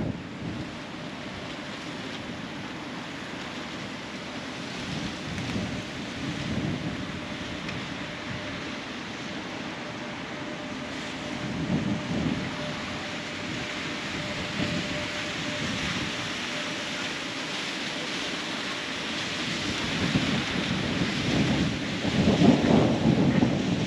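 Wind buffeting the microphone in uneven low rumbles over a steady hiss, the gusts growing stronger near the end.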